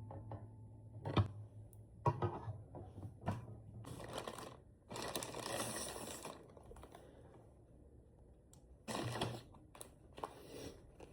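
Small items and packaging being handled, with irregular rustling and clattering in short bursts and a longer rustle about five seconds in.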